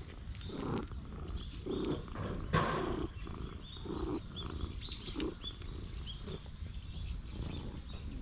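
Domestic cat purring close to the microphone while being stroked, the low rumble pulsing about once a second with its breaths, over the rustle of a hand on fur. A short, louder burst of noise comes about two and a half seconds in.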